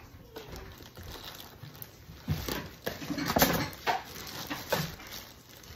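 Packaging being handled: a cardboard box opened and a plastic bag of frozen toast pulled out and crinkled, a run of irregular rustles and crackles that is loudest a little past the middle.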